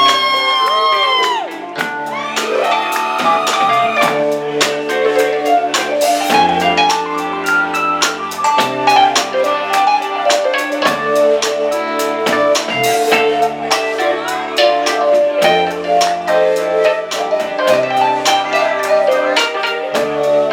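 Live band music: a drum kit keeps a quick steady beat under bass and sustained pitched notes, with a long bending note about a second in.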